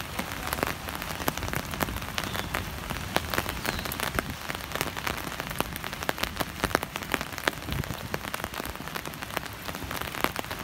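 Steady rain falling, with many sharp drop impacts close by.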